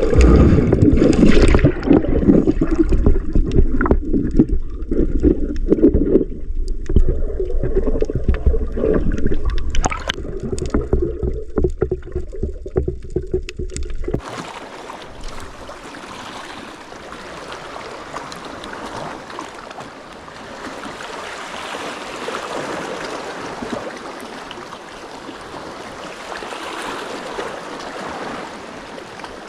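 Heavy, gusting wind rumble and knocks on the microphone from a moving boat. It cuts off abruptly about halfway through, and a steady hiss of rushing water and waves follows.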